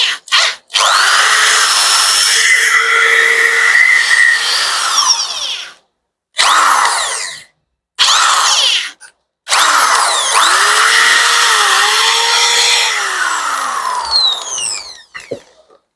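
DeWalt DWD014 corded drill test-run after a new armature and carbon brushes were fitted. Two quick trigger blips, then four runs of one to five seconds with short pauses between them. The motor's whine rises and falls with the trigger and falls away as it winds down after the last run.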